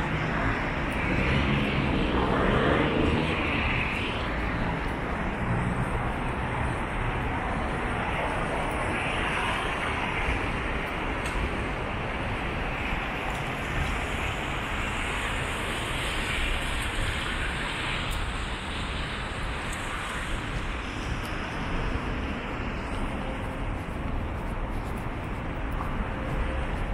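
City street ambience dominated by steady road traffic noise, with a few swells as vehicles pass.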